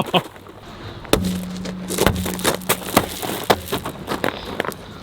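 Shop work noise: a series of sharp knocks and clanks, with a steady motor hum for about two seconds starting about a second in.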